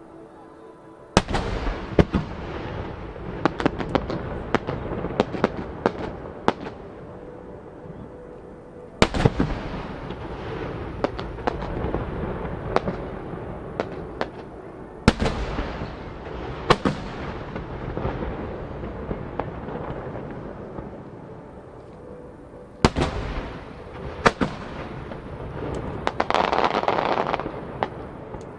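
Aerial firework shells bursting over a lake. Several loud booms come a few seconds apart, each followed by a run of smaller sharp cracks and a lingering rumble. Near the end a dense hiss lasts about two seconds.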